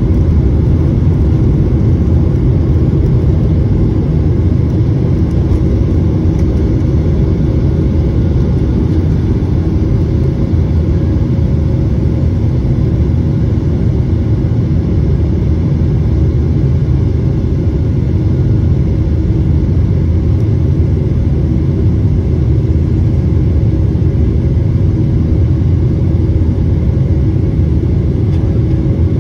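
Jet airliner's engines at takeoff thrust, heard from inside the cabin over the wing: a loud, steady, low rumble as the aircraft leaves the runway and climbs.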